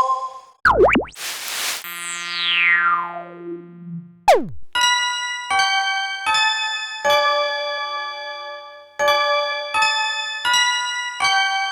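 A string of synthesized sound effects: a quick zip, a short burst of noise, a long falling glide tone, and a fast downward swoop, followed by a run of bell-like chime notes at changing pitches, about one every 0.7 seconds.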